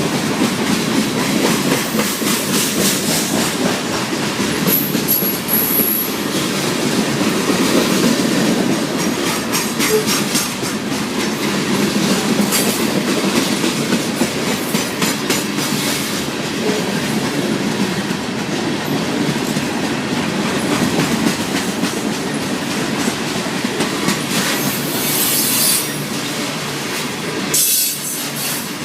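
A freight train's cars rolling past at close range, their steel wheels clacking steadily over the rail joints.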